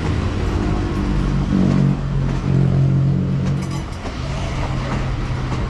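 Diesel train passing slowly, its engine giving a steady low drone that dips briefly about four seconds in.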